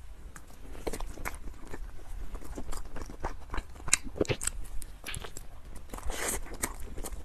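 Close-miked biting and chewing of a soft mango snow-skin cake, a sponge cake wrapped in a glutinous, mochi-like skin, with many small irregular mouth clicks and smacks.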